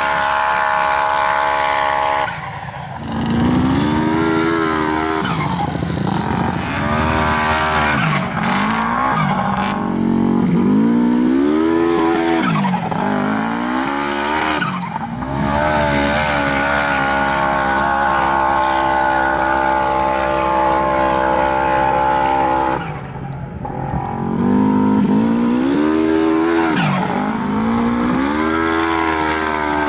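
Turbocharged Polaris RZR XP 900 parallel-twin engine at full throttle under load in sand, held at a steady high rev for long stretches. Twice it briefly lifts off, about two seconds in and again past twenty seconds, and between those points the revs repeatedly climb and fall.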